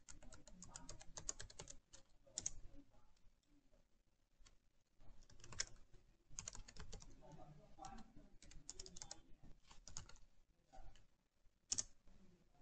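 Faint typing on a computer keyboard: quick runs of key clicks with short pauses between them.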